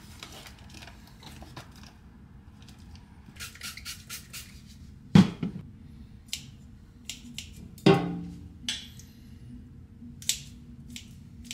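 Kitchen scissors snipping and plastic food packaging being handled, with two sharper knocks of dishware about five and eight seconds in, the second ringing briefly. A faint steady hum runs underneath.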